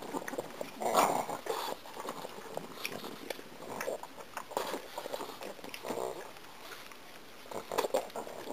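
Pug chewing gum, its mouth and tongue making repeated wet smacking and clicking sounds, with a louder breathy huff about a second in.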